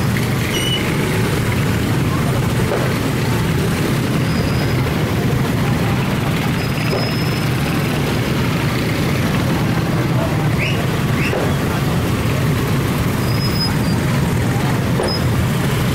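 Steady din of chattering people and road traffic, with a few short, high thin tones scattered through it.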